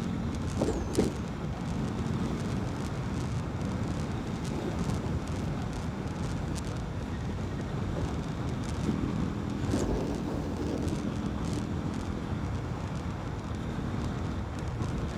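Yamaha Fazer 250's single-cylinder engine running with its air filter removed, heard while riding and largely buried under wind noise on the microphone. A steadier engine tone comes through from about nine seconds in.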